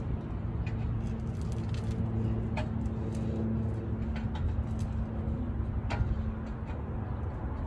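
A steady low mechanical hum fades out about halfway through, with a few short bird chirps over a low background rumble.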